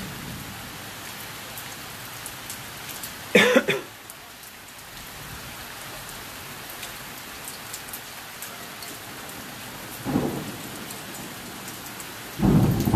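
Steady rain falling during a thunderstorm, with thunder rumbling about ten seconds in and again, louder, near the end. A short, sharp burst about three seconds in is the loudest sound.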